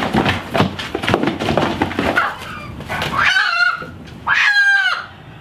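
Silver Spangled Hamburg hen scuffling and rustling inside a cardboard box as she is grabbed by hand, then squawking twice, each call about half a second long.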